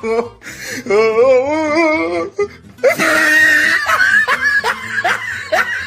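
Loud human laughter, with a high wheezing shriek about three seconds in, then a run of short falling "ha" bursts about three a second.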